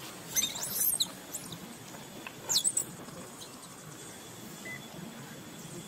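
Young macaque squealing: a quick run of short, high-pitched falling squeaks about half a second in, and a second, shorter run about two and a half seconds in.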